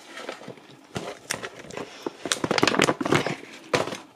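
Crinkling of a paper-and-plastic dog-treat pouch as it is handled and worked open. It is a run of sharp crackles, sparse at first and then denser and louder from about two seconds in, with a sharper click near the end.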